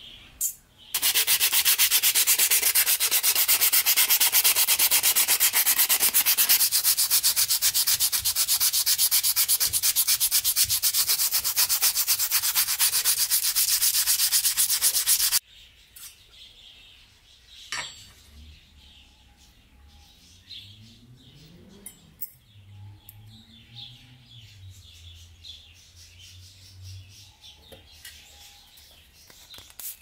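Power sander working a strip of hardwood, a loud, even rasping hiss with a fast fine ripple that starts about a second in and stops abruptly at about the halfway point. The second half is quiet, with a few light clicks.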